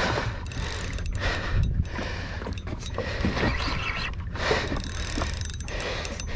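Wind and sea noise rushing over the microphone on a boat, with a low rumble and some mechanical rattling and clicking, as from a spinning reel being worked during a fight with a fish.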